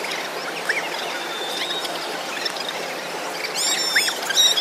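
Outdoor ambience with a steady hiss and scattered short, high-pitched chirps that grow thicker and louder near the end.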